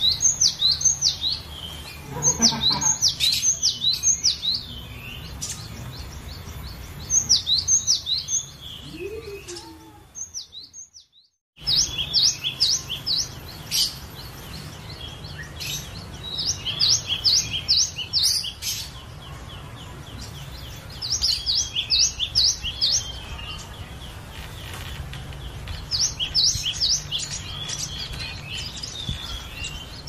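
Cinereous tit (glatik batu) singing: bouts of rapid, high, down-sweeping notes repeated several times a second, with short pauses between bouts. The sound cuts out for about a second about a third of the way in.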